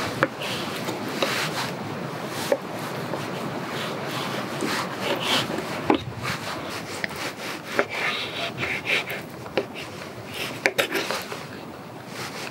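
A knife drawing through a raw salmon fillet on a wooden cutting board: soft slicing and scraping strokes, with occasional sharp taps as the blade meets the board.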